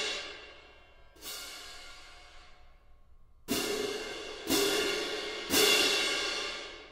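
A pair of orchestral hand cymbals played forte: a crash still ringing out at the start, a softer swish about a second in, then three crashes about a second apart, each left to ring.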